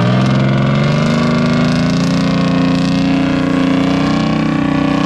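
Diesel engine of a cement mixer truck revving up, its pitch rising over about the first second and then holding steady under load.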